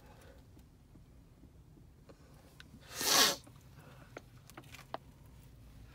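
A man's short, loud, breathy exhale about three seconds in, with a few faint small clicks before and after.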